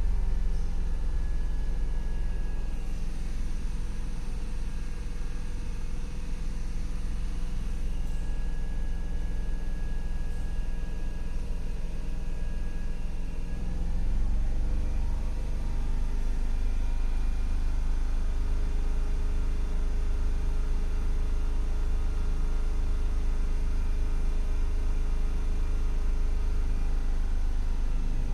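Range Rover engine idling while being checked for a misfire that has set no fault code. About halfway through its note rises slightly and gets a little louder, with a regular low pulsing from then on.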